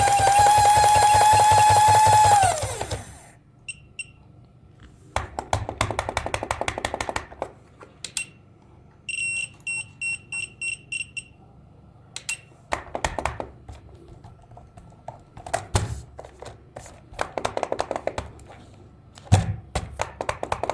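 An overvolted electric toy mechanism whining and buzzing at high speed, rising slightly in pitch, then winding down and stopping about two and a half seconds in. After that come bursts of rapid clicking and rattling, with a run of about seven quick bell-like rings, about three a second, near the middle.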